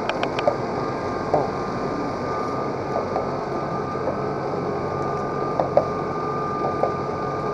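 Cable lift running: a steady mechanical hum with a constant thin whine, a quick run of about four clicks at the start and a few scattered clicks and rattles after that.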